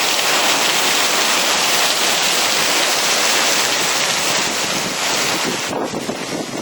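Torrential rain pouring down in a dense, steady hiss. About six seconds in, the higher hiss drops off suddenly and it turns a little quieter.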